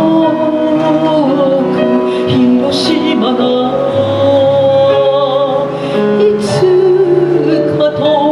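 A female chanson singer sings into a microphone over instrumental accompaniment, holding long notes.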